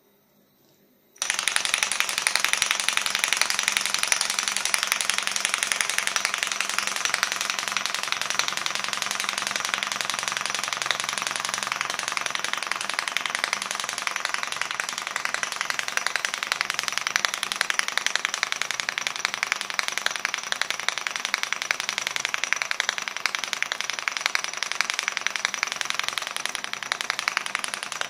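Small test-tube free-piston Stirling engine, heated at its top by a torch flame, kicking into motion about a second in and then running steadily: its piston shuttling very fast with a dense, loud rattling buzz.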